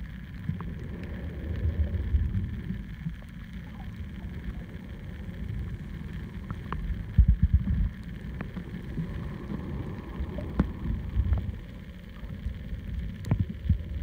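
Muffled low rumble and sloshing of water moving around an underwater camera as it is held beneath the surface over a reef, with scattered sharp clicks and a louder surge of rumble about halfway through.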